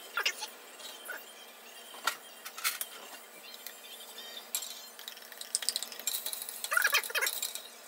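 A spoon clinking and scraping against a small glass cup and a stainless steel saucepan as garlic and lemon juice are scraped into the pot: a few separate clinks, then a quick run of ringing clinks and scrapes near the end.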